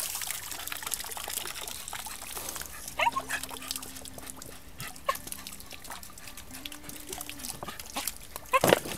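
Jack Russell terrier giving short yips, about three and five seconds in and loudest near the end, over the steady splashing of a garden hose's stream into a paddling pool.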